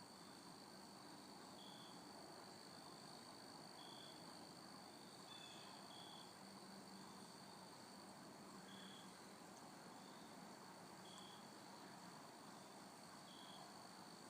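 Near silence: faint outdoor ambience with a steady high insect drone and soft short chirps every couple of seconds.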